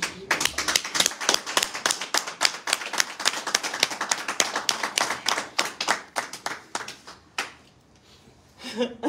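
Several people clapping in a small room, thinning out after about six seconds, with one last clap near the end.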